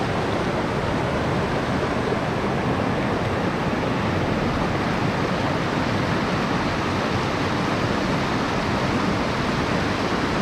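Shallow river running high, rushing steadily over rocks and a low weir: an even, unbroken noise of flowing water.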